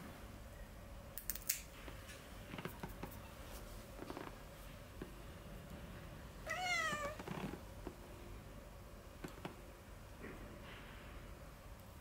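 A domestic cat gives one wavering, complaining meow just past the middle while its claws are being clipped. A few sharp clicks of pet nail clippers cutting claws come about a second and a half in.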